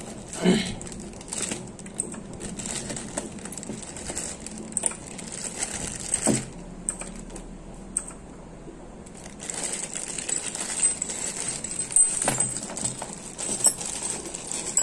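Small zip-lock plastic bags crinkling as they are handled and opened, with light clinks and rattles from the metal drill accessories inside. It goes quieter for a couple of seconds in the middle.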